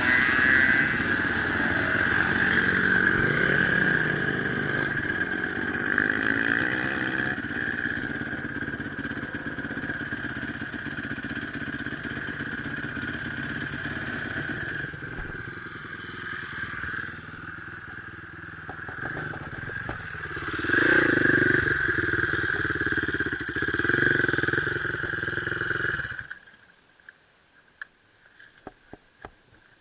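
Enduro motorcycle engine running and revving, with two rises in revs about two-thirds of the way through. Near the end the engine sound stops abruptly, leaving near quiet with a few small clicks.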